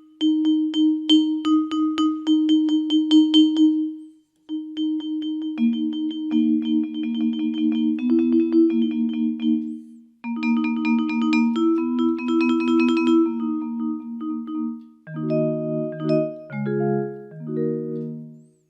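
Casio AiX keyboard playing a mallet-percussion preset. It opens with quick repeated notes on one pitch, plays short melodic runs, and ends on a few lower chords. The sound stops briefly twice.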